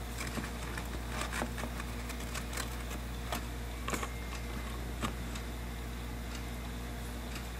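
Small irregular clicks and ticks, thickest in the first few seconds, typical of a pet crab's claws and shell picking at and tearing an anchovy, over a steady low hum.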